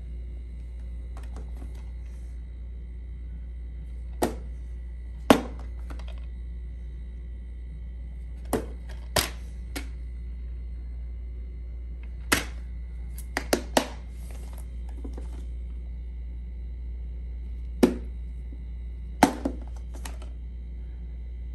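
Plastic DVD cases being handled: sharp clicks and snaps as the cases are opened, closed, turned over and set down on a tabletop, about a dozen spread through, some in quick pairs and threes. A steady low hum runs underneath.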